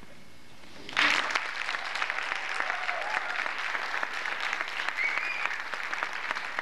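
Audience applauding: clapping breaks out suddenly about a second in and carries on steadily.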